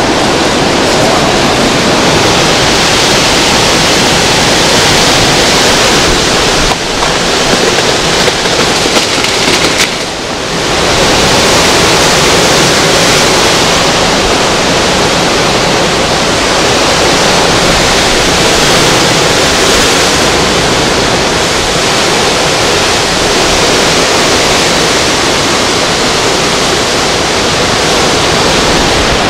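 Hurricane wind and driving rain: a loud, steady rushing noise of gusts tearing through trees, with a brief dip about ten seconds in.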